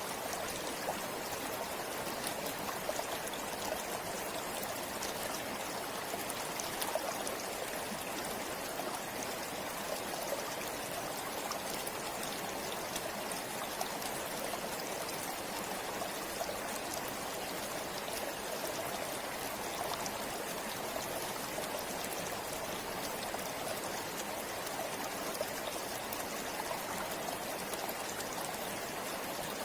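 Forest river or stream flowing steadily over rocks, a constant rushing with small splashes and trickles.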